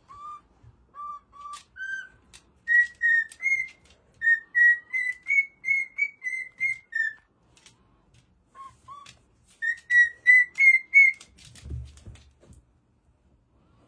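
Whistling: a run of short, clear whistled notes stepping up and down in pitch like a simple tune, in three phrases with short pauses between them.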